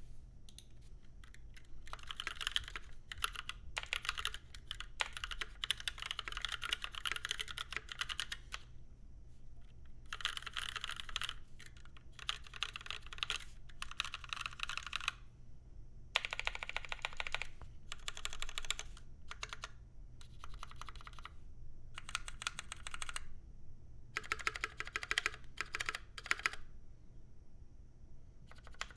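Mechanical keyboard with stock NovelKeys Cream linear switches, an aluminium case with a brass plate, and GMK keycaps, typed on in runs of quick keystrokes broken by short pauses.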